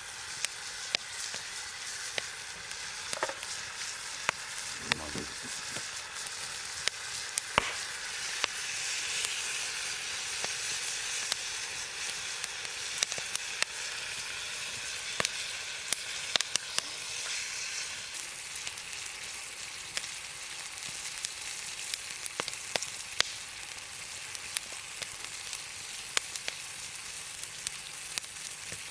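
Food frying over a wood fire, a steady sizzle with frequent sharp pops and crackles.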